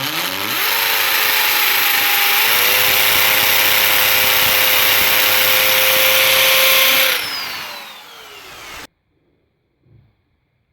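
Electric drill boring a hole for wall plugs. It spins up, runs steadily at full speed with a slight rise in pitch after a couple of seconds, then winds down with a falling whine and stops near the end.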